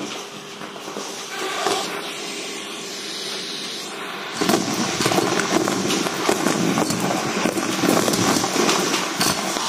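Vacuum cleaner running through a metal wand, a steady rush of air. About four seconds in, small debris starts crackling and rattling up through the metal tube.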